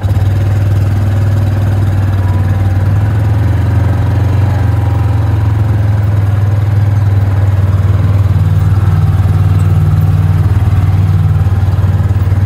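Engine of a small open utility vehicle running steadily as it drives across a lawn, a loud, even low drone.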